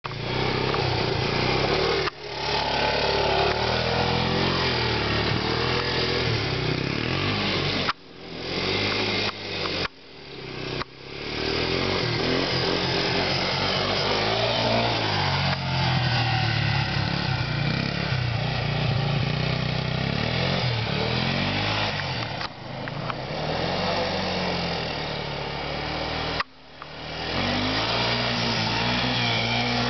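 Yamaha YTM200 Tri-Moto three-wheeler's single-cylinder engine revving up and easing off again and again as the rider pulls wheelies. The sound cuts off abruptly several times and comes straight back.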